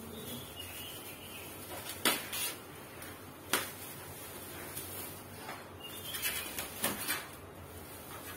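Stand-fan parts being unpacked and handled: plastic packaging crinkling, with a few sharp clacks of plastic and metal parts knocking together, the loudest about two seconds in, at three and a half seconds, and near seven seconds.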